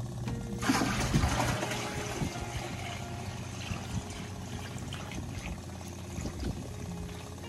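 Maple sap poured from a plastic bucket into another plastic bucket, starting with a splashy rush about a second in, then settling into a steady stream.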